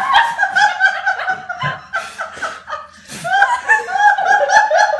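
People laughing hard: rapid, high-pitched bursts of laughter, easing briefly partway through, then picking up again.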